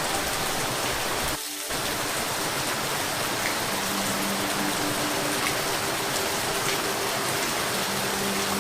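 Steady rain falling, an even hiss, with a brief drop in level about a second and a half in.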